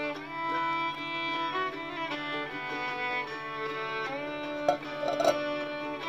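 Instrumental background music, a melody of held string notes. There are two short, sharp sounds about a second apart near the end.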